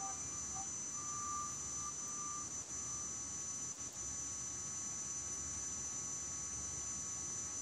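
Steady low background hiss and hum with a faint, steady high-pitched whine.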